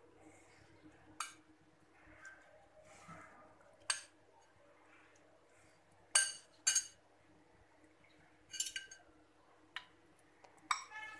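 A utensil clinking several times against a glass batter bowl and a ceramic plate while chicken pieces are dipped in egg batter and coated in flour: sharp clinks about a second in, near four seconds, a louder pair around six seconds and a few more near nine seconds, with faint soft handling noise between.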